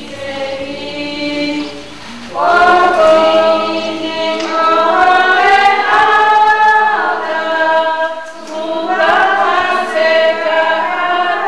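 A choir singing a hymn in long held notes, softer at first, then coming in fuller and louder about two seconds in, with a short dip past the middle before the voices swell again.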